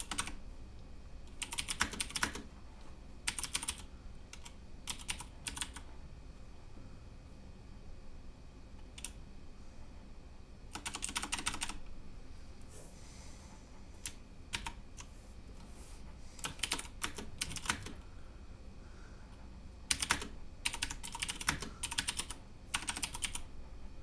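Keystrokes on a Cooler Master MasterKeys Pro M mechanical keyboard with Cherry MX switches: short runs of rapid key presses separated by pauses of one to three seconds, about ten runs in all.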